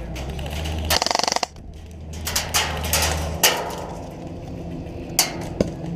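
Airsoft guns firing: a short rapid-fire burst of clicking shots about a second in, then scattered single shots.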